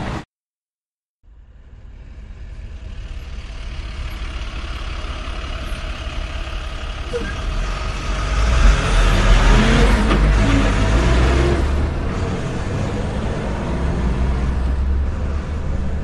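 Ram Rebel TRX pickup's engine running with a low rumble, which drops out for about a second near the start, fades back in and swells about eight seconds in.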